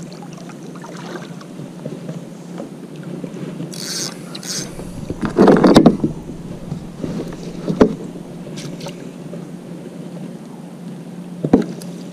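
Kayak and gear handling on the water: paddle and water noise, then a loud clatter about five seconds in and a few sharp knocks against the hull as a landing net is taken up and a fish is netted alongside.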